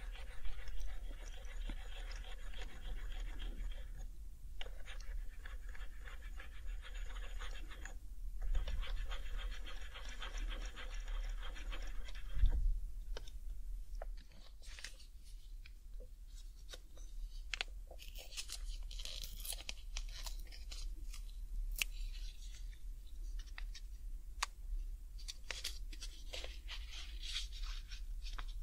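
Alcohol wipe rubbing back and forth over the keycaps of an HHKB Professional 2 keyboard in long strokes, with two short pauses, then a single thump about twelve seconds in. After that, scattered sharp clicks and bursts of crinkling as an alcohol-pad packet is handled.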